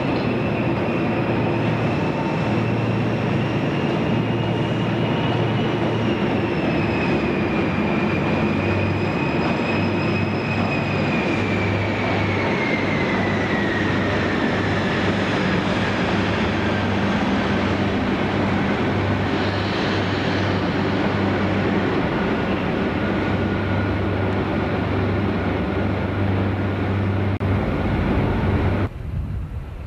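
InterCity 125 high-speed diesel train running, with a steady low engine hum under a high whistle that slowly falls in pitch, then levels off. The sound cuts off abruptly near the end.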